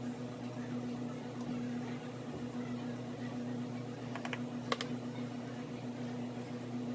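Light clicks and scrapes of a hand tool working the rubber sole of a sneaker on a cobbler's iron last, with a small cluster of sharper clicks about four to five seconds in, over a steady machine hum.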